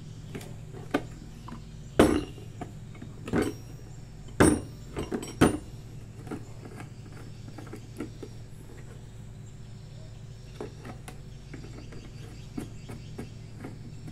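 Hard plastic clicks and knocks as the screw cap and spout of a plastic jerrycan are twisted and handled: one sharp knock about two seconds in, a cluster of knocks between about three and a half and five and a half seconds, then lighter ticks. A steady low hum runs underneath.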